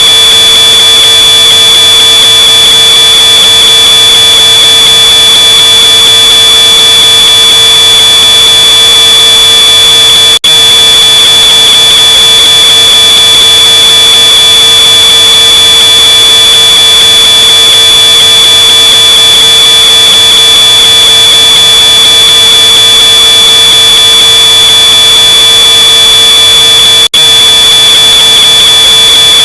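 Smoke alarm's shrill, high-pitched tone held without a break and boosted to extreme, distorted loudness. It cuts out for a split second about ten seconds in and again near the end.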